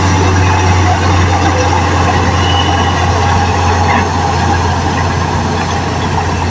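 Heavy diesel engine of earth-moving machinery running steadily with a deep, even hum.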